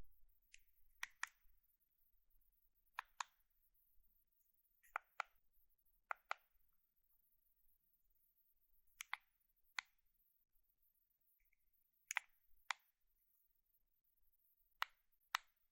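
Buttons on an air conditioner remote control being pressed, with no beeps. Each press gives a quick double click, about eight presses with pauses of one to three seconds between them.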